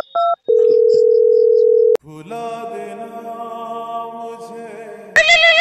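Smartphone keypad dialling tones, then a steady phone line tone for about a second and a half, followed by soft sustained background music. Near the end a loud, wavering, animal-like cry starts.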